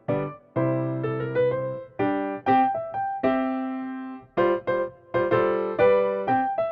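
Background music: piano (or electric piano) notes and chords, each struck and left to fade.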